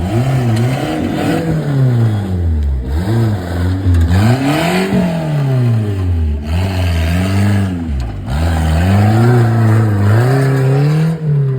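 Off-road jeep engine revving hard, its pitch climbing and falling over and over as the throttle is worked on and off, with short drops about 3, 6.5 and 8 seconds in.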